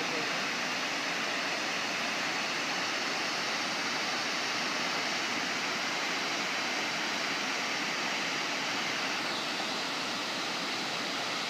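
Steady rush of water pouring over a concrete dam spillway into the pool below.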